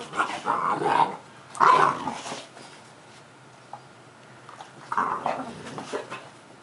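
Boxer dogs growling and barking at play, in three bursts: one in the first second, one about two seconds in and one about five seconds in, with a quiet gap in between.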